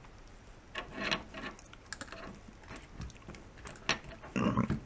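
Small clicks and rubbing from a plastic switch housing being turned over and handled in the fingers, with a louder burst of handling noise near the end.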